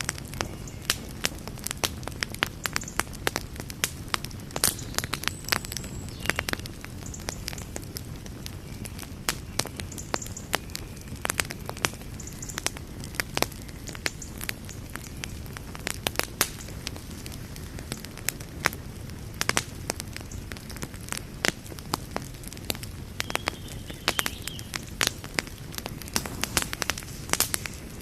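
Wood campfire burning steadily, with frequent irregular sharp crackles and pops over a low, even rumble of flame.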